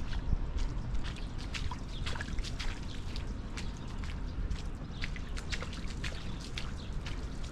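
Footsteps on a wet, gritty path, with irregular crunching and splashy clicks several times a second. A steady low rumble runs underneath.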